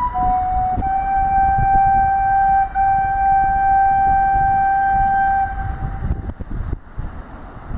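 A flute-like wind instrument plays a short note and then holds one long, steady note for about five seconds, which fades out about six seconds in. Wind buffets the microphone underneath, and is all that remains near the end.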